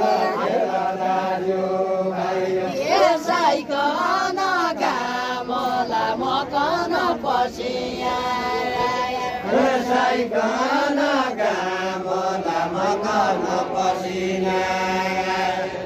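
Voices singing a deuda folk song together: a drawn-out, chant-like melody with long notes that bend up and down.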